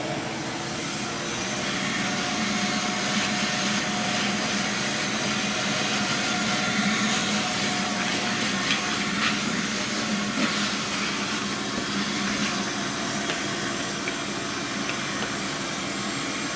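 Shop vacuum running steadily, a motor whine over a rushing noise, as sanding dust from the body filler is vacuumed off the panel.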